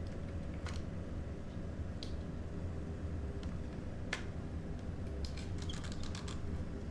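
Light plastic clicks and rattles as hands work the body shell of a WLtoys 124018 RC buggy, unfastening its body clips, with a quick run of clicks a little after five seconds in. A steady low hum lies underneath.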